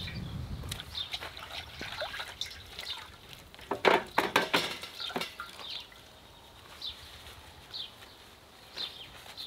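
Rustling and knocking from handling a roasted bull's head and its paper wrapping, loudest in a burst of crinkles about four seconds in, followed by a few short bird chirps.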